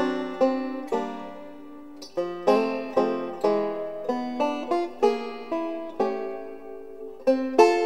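Background music played on a plucked string instrument, banjo-like: notes and chords picked at an unhurried pace, each ringing out and fading before the next.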